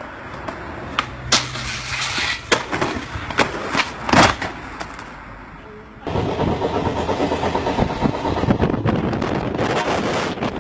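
A few sharp knocks and thumps over a low background, then, about six seconds in, the steady rattling rumble of a moving vehicle heard from inside it.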